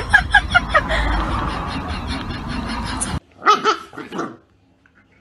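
A dog's quick run of yips over a noisy background, cut off suddenly about three seconds in, followed by two or three short, pitch-bending whining howls from a Siberian husky.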